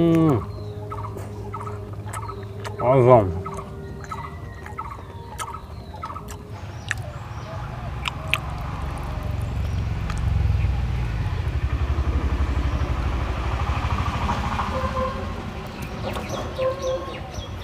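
Close eating sounds of a man eating with his hands: scattered wet clicks and smacks as he bites and pulls apart mutton chusta. A bird gives a short warbling call about three seconds in, and a low rumble swells and fades through the middle.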